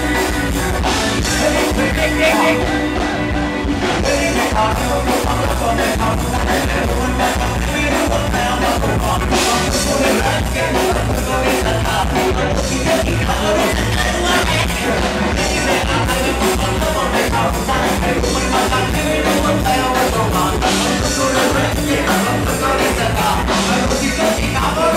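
Music with a steady, driving beat and singing.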